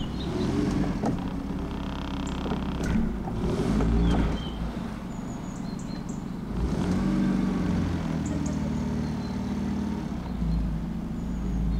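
Small boat outboard motor running, its note rising and falling several times as the throttle is opened in short spurts of power for low-speed manoeuvring.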